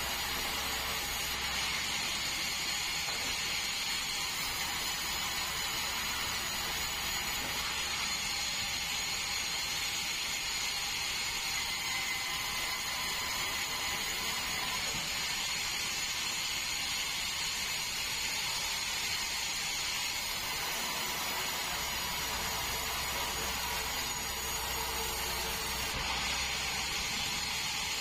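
Band sawmill running through a large meranti log, a steady, even hiss and whine of the blade that holds at one level throughout.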